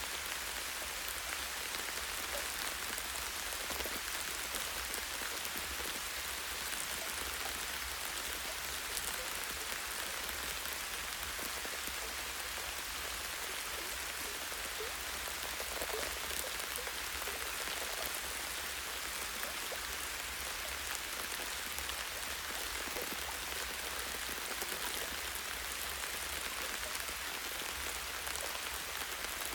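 Light rain falling steadily on tree branches and leaves: an even hiss dotted with many small drop ticks.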